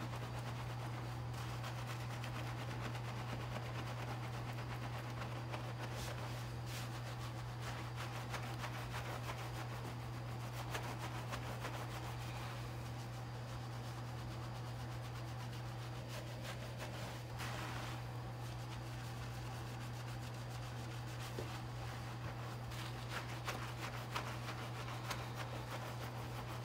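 Hands scrubbing shampoo lather through long wet hair, a soft wet squishing and rubbing with small irregular clicks, over a steady low hum.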